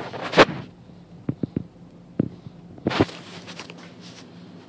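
Handling noise: a string of knocks, clicks and rubs as the hand-held camera is moved about up close, the loudest knock about half a second in and a rougher rubbing burst about three seconds in, over a faint steady low hum.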